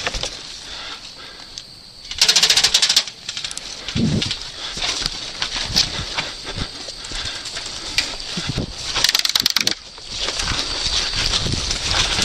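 Airsoft guns firing full-auto bursts: a rapid clattering burst of about a second, two seconds in, and another near nine seconds.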